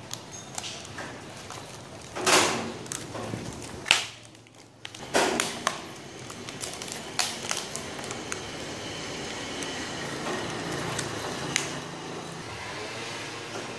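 Clear packing tape pulled off the roll in three loud rips, about a second and a half apart. After that comes steady crinkling and rustling with small clicks as the tape is wound around a styrofoam block.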